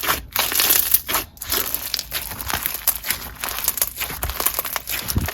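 Clear slushy slime with bingsu beads being worked by hand: a continuous crunchy crackling of the beads with dense fine pops as the slime is squeezed and mixed.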